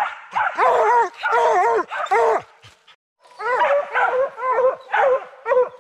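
Bear hound barking treed at the foot of a tree, a quick run of short, high yelping barks about two to three a second that breaks off briefly near the middle and then starts again. This is its tree bark, the sign that the bear is up the tree.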